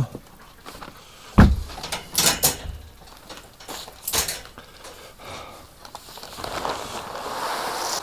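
Wire pen gate and barn door knocking and rattling: a heavy thump about a second and a half in, then a few lighter clicks and knocks. Near the end comes a rustling hiss that grows louder.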